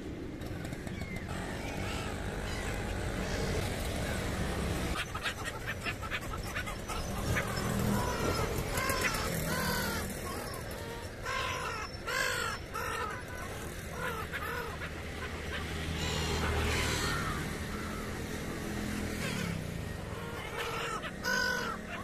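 Black-headed gulls calling in a flock: harsh, repeated squawks in clusters, busiest around the middle and again near the end, over a low steady rumble.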